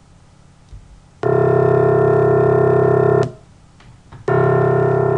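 Two renderings of a grand piano's low C1 note, played one after the other. One is a synthesized sum of 50 pure tones whose frequencies and strengths were sampled from the note's line spectrum; the other is the original piano recording. Each holds steady for about two seconds and starts and stops abruptly, with the second beginning about a second after the first ends.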